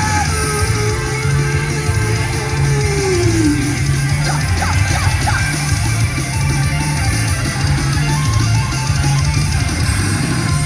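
Live rock band playing loudly, with electric guitar and drums, recorded through a phone's microphone. A held note slides down in pitch about three seconds in.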